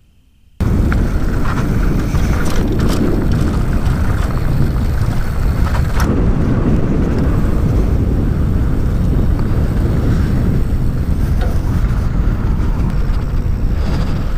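Loud, steady wind rush buffeting the microphone while riding, starting abruptly about half a second in, with a few faint clicks.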